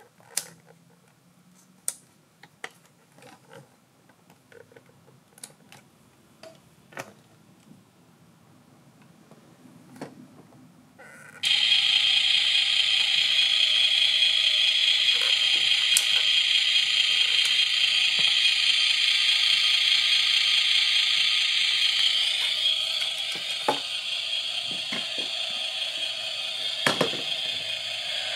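Light plastic clicks and handling at the Carson Linde H40D 1:14 RC forklift's battery cover. About eleven seconds in, a loud steady sound from the switched-on model sets in abruptly and carries on, easing a little in level about two-thirds of the way through.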